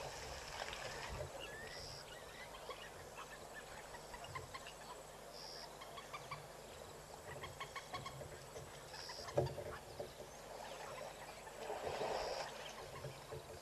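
An African elephant splashing mud and water over itself in a mud bath, the loudest splash about twelve seconds in, with a sharp knock shortly before. Birds clucking and calling keep up throughout.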